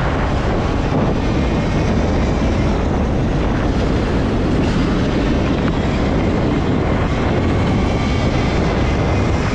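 A long train rolling past close by, a steady, loud rumble of wheels on rails with no breaks.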